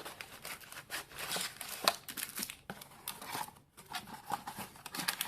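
Packaging crinkling and tearing by hand as a card collection box is opened, with irregular rustling handling noise and a sharp click about two seconds in.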